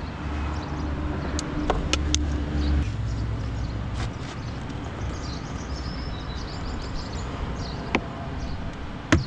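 Plastic trim-removal tools prying at the lower edge of a Mercedes W221 front door card, giving scattered sharp clicks and snaps, with the strongest pair near the end. A steady low hum runs under the first three seconds, then drops away.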